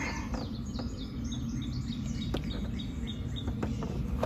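A songbird singing: a string of short high chirps, the first few sliding down in pitch, then a quick run of evenly repeated notes about four a second. Under it runs a steady low background rumble, with a couple of light knocks.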